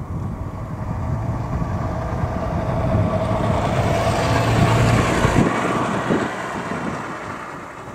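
A car approaching on a snow-covered road and passing close by: engine and tyre noise build to a peak about five seconds in, then fall away as it drives off.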